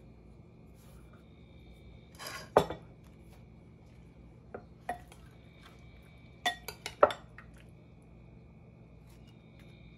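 A metal spoon clinking and scraping against a glass mixing bowl as chopped tomatoes are scooped out. A short scrape and knock come about two seconds in, then a few single clinks, with a quick cluster of clinks a few seconds later.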